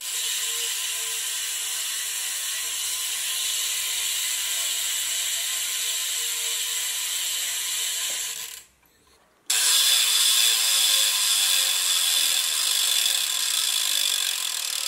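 BMX cassette hub freewheeling as the wheel spins, its pawls striking the ratchet ring in a fast continuous buzz of clicks. It cuts out briefly about nine seconds in and resumes clearly louder: the hub after being modified to make the pawls strike harder.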